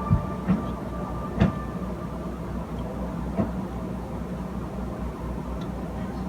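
A steady mechanical hum with a low rumble, broken by a few sharp knocks and clinks of a metal muffin tin being handled as it comes out of the oven.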